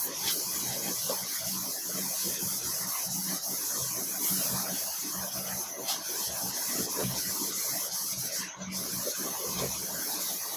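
A hand-held eraser rubbing marker off a whiteboard, making a steady scrubbing hiss.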